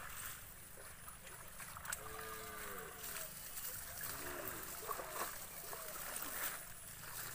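Clumps of water hyacinth being pulled and rustled in a shallow ditch, with small splashes and drips of water. A voice calls out briefly twice.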